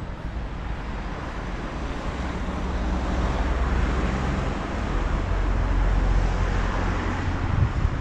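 Road traffic: a vehicle passing on the street, its rumble and tyre noise growing louder over several seconds and then easing slightly.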